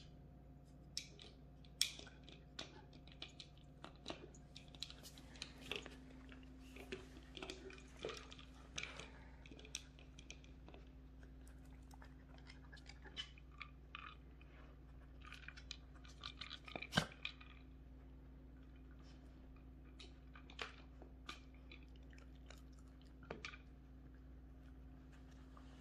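Bichon Frise puppies crunching and chewing dry treats that they dig out of treat toys, with scattered sharp clicks and knocks of the toys, the loudest about 17 seconds in.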